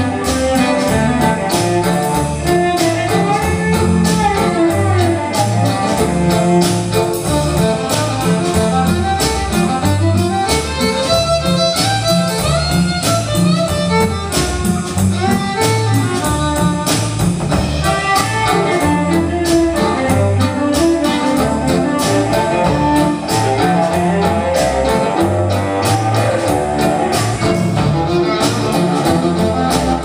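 Live rock band playing an instrumental passage: a drum kit keeping a steady beat under electric guitar, violin and cello.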